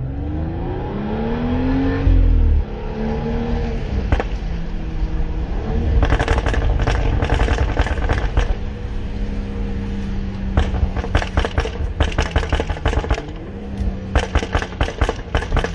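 BMW X6 35i's turbocharged inline-six, fitted with an FI aftermarket exhaust, revving up for about two seconds and falling back. From about six seconds in, the exhaust gives rapid strings of pops and crackles as the revs drop off, in clusters, with the densest near the end.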